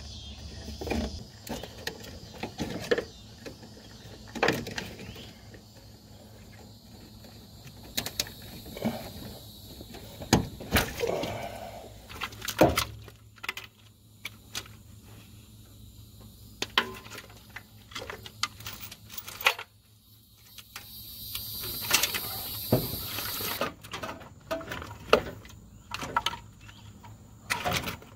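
Irregular clicks, knocks and scrapes of hands and tools unhooking wiring and hoses from a Chevy 350 V8 in its engine bay.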